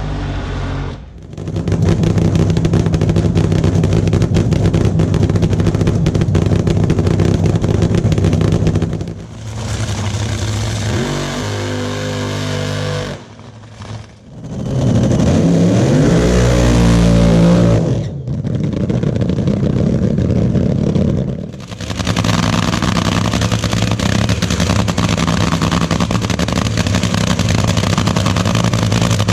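Nitromethane-fuelled dragster engines cackling, in a string of cut-together takes, loud and rough with rapid crackling firing. About halfway through, one engine revs up sharply.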